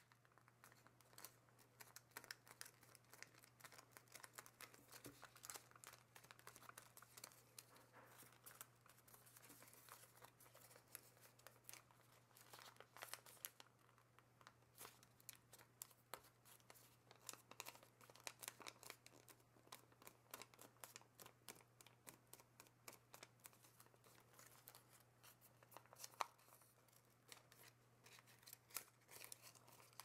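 Origami paper being folded and creased by hand: faint, irregular crinkling and crackling of the paper as the fingers press and shift the folds.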